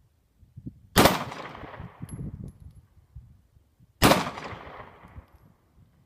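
Two shots from a SCCY CPX-2 9mm pistol, about three seconds apart, each trailing off in a long echo.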